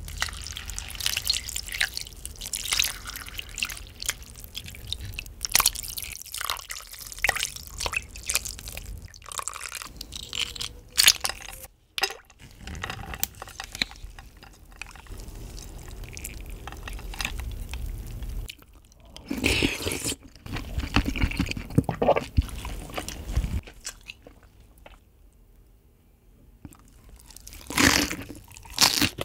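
Water poured over cooked rice in a glass bowl, then a spoon stirring the rice and tapping against the glass with many small clicks. Near the end come crunchy bites and chewing of freshly made napa cabbage kimchi.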